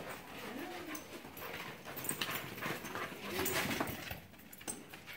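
Puppies playing rough together, giving a few short whines and yips, with scattered light knocks and scuffles.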